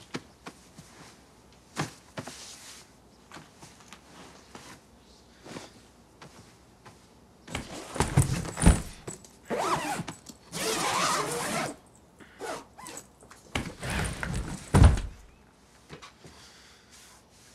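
Things being handled in a suitcase: light scattered knocks and rustles, then louder rustling and shifting with several dull thumps from about eight seconds in, the heaviest thump about fifteen seconds in.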